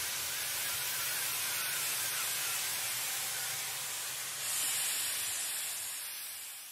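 Steam locomotive letting off a steady hiss of steam, growing brighter about four and a half seconds in and fading out at the end.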